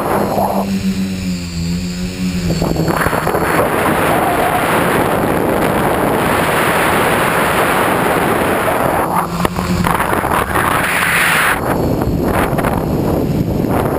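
Wind rushing loudly over a flying tricopter's onboard camera microphone. The hum of its three motors and propellers shows through when the wind eases, dipping slightly in pitch about a second in and returning briefly near ten seconds.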